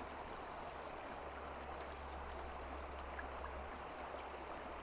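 Faint, steady rush of river water flowing over rocks.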